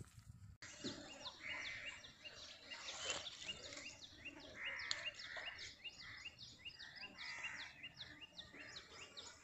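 Birds chirping, a faint run of many short repeated chirps, several a second, starting about half a second in.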